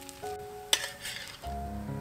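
Background music with a plain melody; about two-thirds of a second in, a metal spatula clinks sharply once against the steel wok, followed by a short hiss of sizzling oil.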